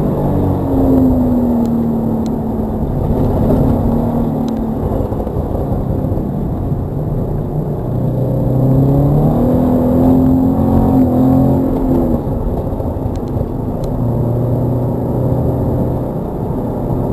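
Toyota GT86's FA20 flat-four engine heard from inside the cabin: revs falling under braking at the start, climbing again about eight seconds in, then a brief dip at an upshift and a steady pull at mid revs. Tyre and spray noise from the wet track runs underneath, with a few faint clicks.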